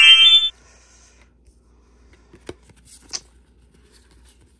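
A loud rising tone cuts off about half a second in. Then come soft handling sounds of trading cards and booster-pack wrappers, with two small clicks.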